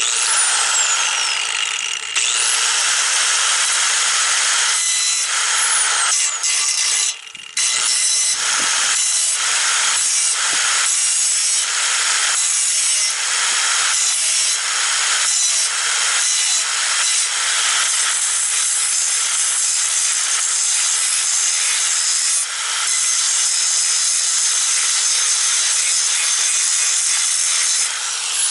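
Corded angle grinder grinding lightly into spot welds on a steel car core support, a loud steady grinding hiss. It dips briefly about seven seconds in and more shortly several times around then.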